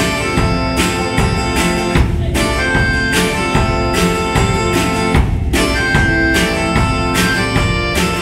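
Live instrumental passage of a folk-rock song: acoustic guitar strummed over a drum kit, with no singing.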